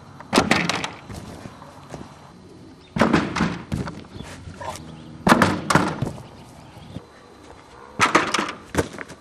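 Thumps of a person running off a small springboard and landing on stacked foam gym mats: four clusters of sharp thuds, one about every two to three seconds.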